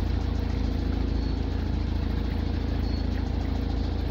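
An engine running steadily: a constant low drone with a hum of several steady tones above it.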